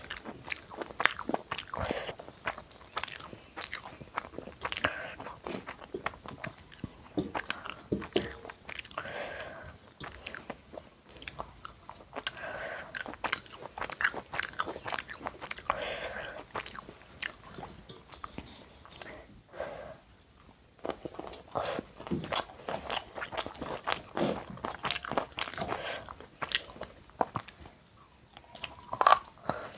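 A person eating chicken biryani with salad: steady chewing with frequent crunchy bites and sharp mouth clicks.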